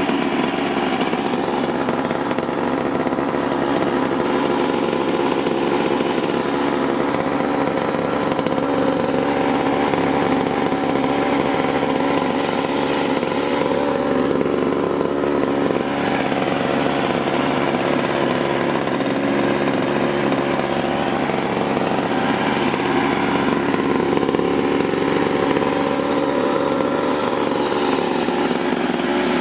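47cc two-stroke pocket bike engine running steadily on a rich break-in oil-and-gas mixture, through a leaky expansion-chamber exhaust pipe.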